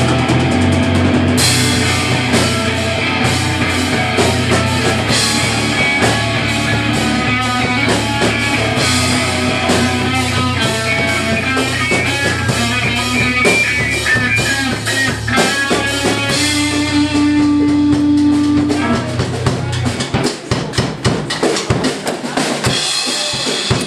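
Live hardcore metal band playing at full volume: distorted guitars, bass and a pounding drum kit. About twenty seconds in the deep bass drops out and the band goes into a choppier, stop-start part.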